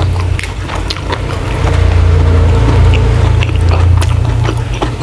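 Close-miked chewing of a mouthful of shrimp and mussel holy basil stir-fry with rice: moist smacks and many short crunchy clicks, with a low rumble for a couple of seconds in the middle.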